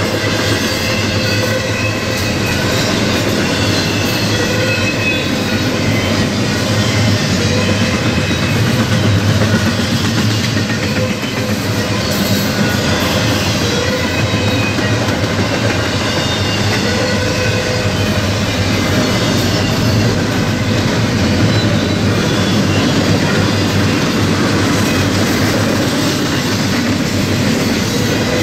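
Double-stack intermodal freight cars rolling past: a steady, loud rumble and clatter of steel wheels on the rails, with thin high squealing tones from the wheels coming and going.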